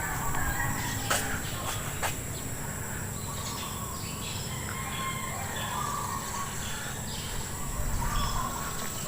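Outdoor morning ambience: scattered short bird chirps over a steady high-pitched insect drone, with two sharp clicks about one and two seconds in.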